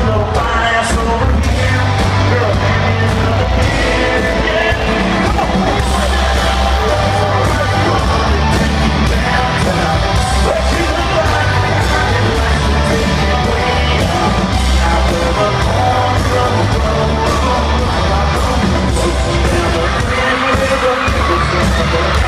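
Live country band playing loud, with a heavy bass beat, a man singing into a microphone, and the crowd yelling.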